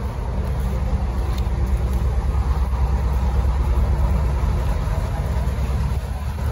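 Steady low machinery drone with an even hum through it, like a running engine, holding level throughout.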